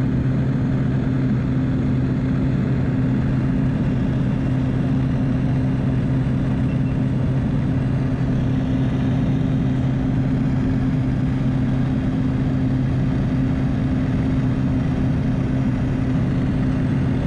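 Light aircraft's engine and propeller droning steadily, heard from inside the cabin in flight: a constant low hum over a hiss of rushing air.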